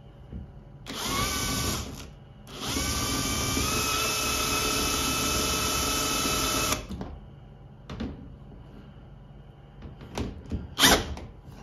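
Bosch cordless drill driving stainless steel self-tapping hex screws into sheet metal: a burst of about a second, then a steady run of about four seconds whose motor whine rises slightly in pitch, and a short, loud blip near the end.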